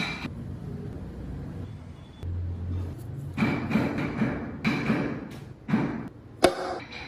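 Hand work on wood: a few short noisy strokes, each around half a second long, then a sharp knock about half a second before the end.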